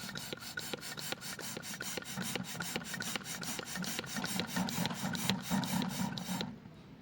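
Rapid, regular rasping strokes, several a second, that stop abruptly about six and a half seconds in.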